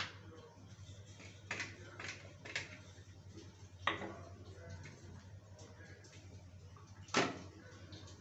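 Scattered knocks and clinks of cookware handled on a gas stove, about six in all, the loudest near the end, over a steady low hum.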